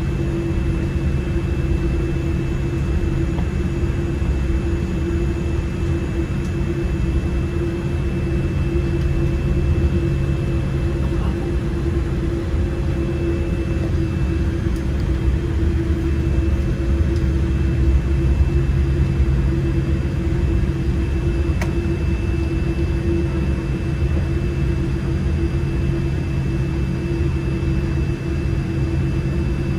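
Steady cabin noise inside a Boeing 787-8 on the ground before takeoff: a low rumble of the engines at idle with a constant hum and a faint high whine.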